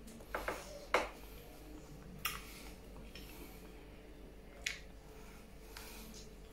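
Mouth biting and eating at a banana with no hands: a few short, sharp wet smacks and clicks from lips and teeth working the peel and fruit, spaced irregularly a second or more apart.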